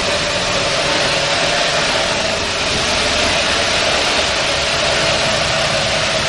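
Lamborghini Miura S Weber-carburetted V12, freshly rebuilt, running steadily on an engine dynamometer at an even, unchanging speed.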